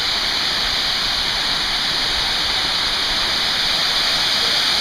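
Waterfall, the 70-foot Lower Falls, pouring down: a steady, even rush of falling water.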